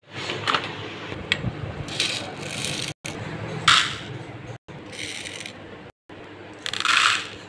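Small white beads rattling and scraping as they are poured and scooped with a plastic spoon in a plastic tray, in several short bursts. The sound drops out abruptly a few times.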